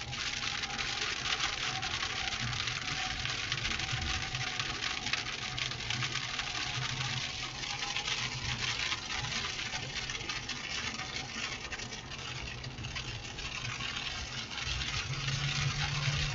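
Steady hiss of a moving vehicle, with a low engine and road hum underneath.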